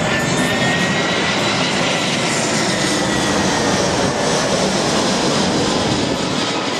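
Jet airliner flying low overhead on landing approach with its gear down: a steady jet-engine roar with a high whine that rises slightly and then slowly falls in pitch.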